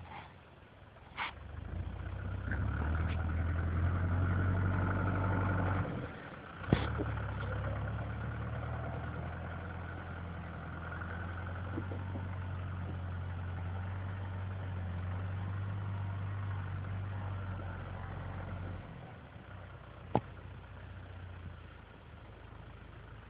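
A tractor's diesel engine running under load as it pushes deep snow with a front blade, louder in the first few seconds and fading away near the end. A few sharp knocks stand out, the loudest about seven seconds in.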